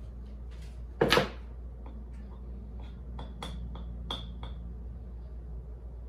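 A bowl set down on a table with a loud knock, then a metal spoon clicking and clinking against the bowl as melted chocolate is stirred.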